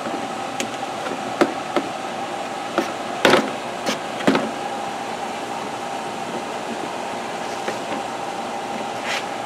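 Scattered plastic knocks and clicks as parts of a plastic toy workbench are handled and fitted together, the loudest about three seconds in. A steady mechanical hum runs underneath.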